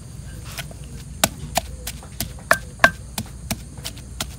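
Kitchen knife chopping on a wooden cutting board: about ten sharp, uneven chops, two to three a second, a few with a short ring.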